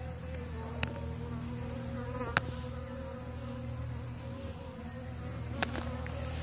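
Bees buzzing around the flowers: a steady, slightly wavering wing hum over a low steady hum. Three sharp clicks cut in, about a second in, near two and a half seconds, and past five and a half seconds, the middle one loudest.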